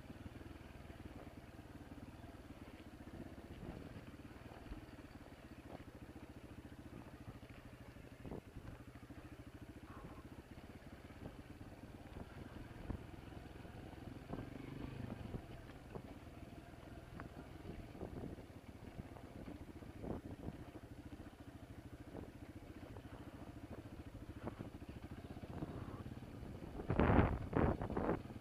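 Honda CRF230F dirt bike's air-cooled single-cylinder four-stroke engine running steadily on the trail, with occasional sharp knocks and clatter. Near the end, a louder rushing noise of wind on the microphone comes in.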